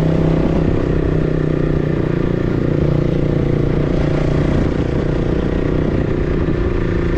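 Motorcycle engine running at a steady pace while riding, its even engine note over a constant low rumble of wind and road.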